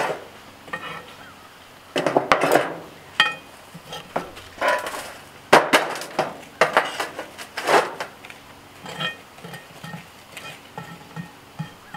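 Metal tongs clinking and scraping as lit charcoal briquettes are set one by one onto a cast-iron Dutch oven lid, in an irregular series of clinks, knocks and scrapes. The metal charcoal chimney is knocked and set down among them.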